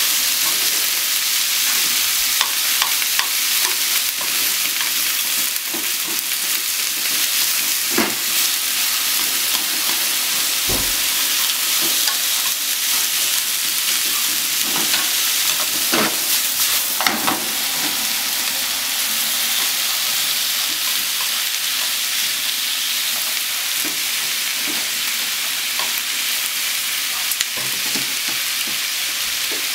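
Sliced onions sizzling in a hot frying pan, a steady high hiss, while a wooden utensil stirs them, scraping and knocking against the pan now and then.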